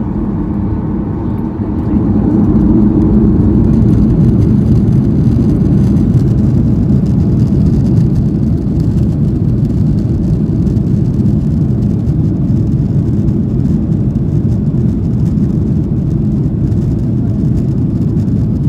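Jet engines of a Ryanair Boeing 737 heard from inside the cabin as the airliner rolls on the ground: a steady low rumble that grows louder about two seconds in, then holds.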